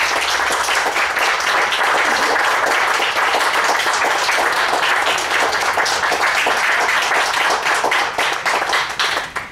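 Audience applauding, a dense steady clatter of many hands clapping that thins out near the end.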